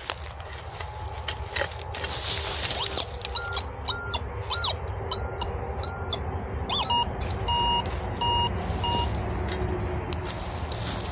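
Metal detector giving short electronic beeps on a target: a run of higher-pitched beeps in the middle, then a run of lower-pitched beeps. Beneath them are the scrapes and knocks of a hand hoe digging in soil and dry leaves.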